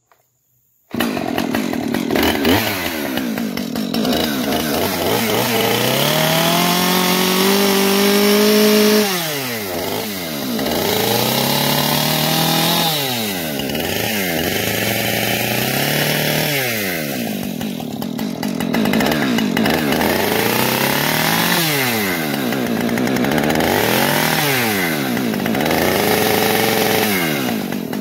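Husqvarna 545 two-stroke chainsaw running, coming in abruptly about a second in, its engine revving up and down over and over as it cuts into a pumpkin.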